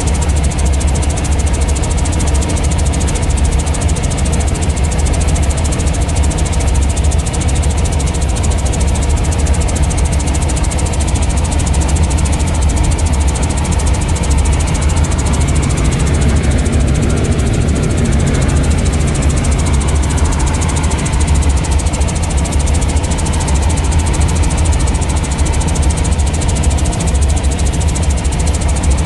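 Light helicopter's engine and rotor droning steadily in cruise flight, heard from inside the cabin, with a strong low hum.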